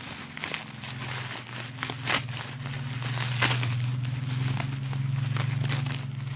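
Bubble wrap crinkling and crackling as hands pull it open, with a few sharper crackles, over a steady low hum that grows louder in the second half.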